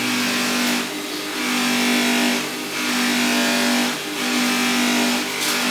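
Bench polisher running with a steady motor hum while small steel rear-guard mounts are buffed on its wheel; a rushing noise swells and fades four times, about every second and a half.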